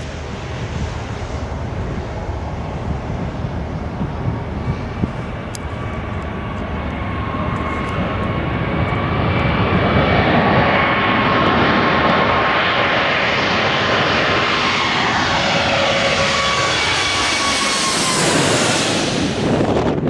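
Boeing 777-300 airliner's twin turbofan engines on landing approach: a jet roar with steady whining tones that grows louder as the aircraft nears. Near the end the whine drops in pitch as it passes by.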